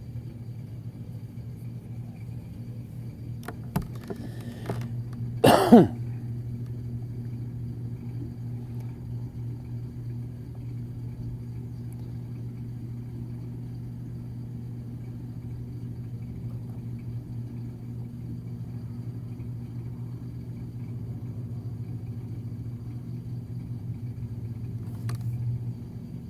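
Samsung washing machine running with an empty drum: a steady low hum throughout. A person coughs about six seconds in, the loudest sound, just after a short click.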